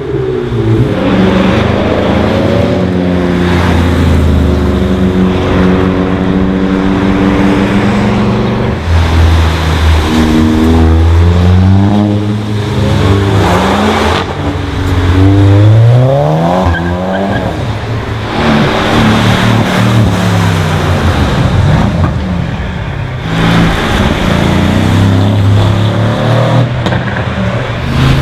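Several modified cars' engines accelerating and passing close by, one after another, their pitch climbing as they rev and then dropping away.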